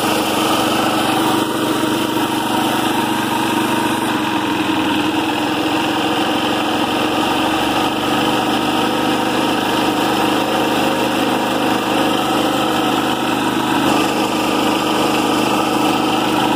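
Honda GX160 single-cylinder four-stroke engine on a gas air compressor, running steadily near idle. Its throttle is slow to respond while the compressor is being brought up to load.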